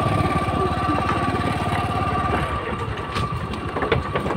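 Motorcycle engine running at low speed, its note easing off about halfway through, with a few sharp clatters near the end.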